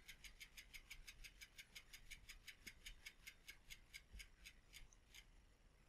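Light, rapid ticking from a spinning bicycle rear wheel, about five ticks a second, slowing slightly as the wheel coasts down and stopping about five seconds in.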